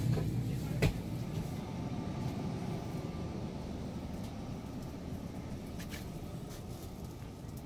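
Steady low hum of indoor store ambience, with one sharp knock about a second in.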